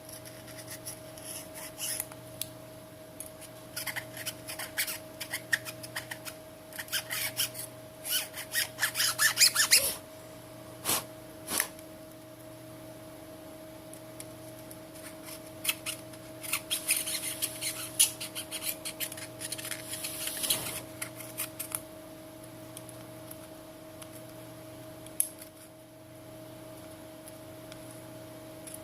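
Rapid scratchy scraping and rubbing strokes in bursts as old adhesive residue is cleaned off the back of a Samsung Galaxy S7, with two sharp clicks midway. A faint steady hum sits underneath.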